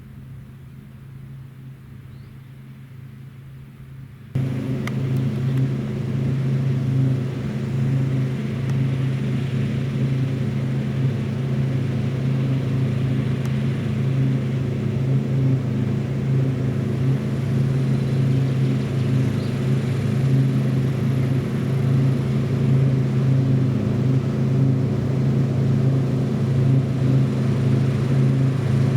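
Large diesel farm-machinery engine running steadily under load, faint at first and then suddenly much louder about four seconds in, a deep continuous drone.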